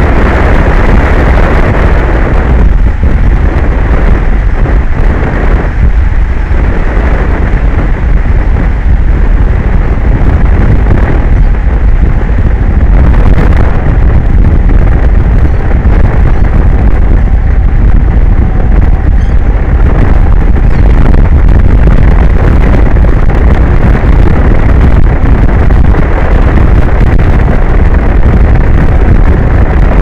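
Strong wind buffeting an outdoor microphone on an offshore tower: a loud, continuous rumble with a hiss that thins out in the highs.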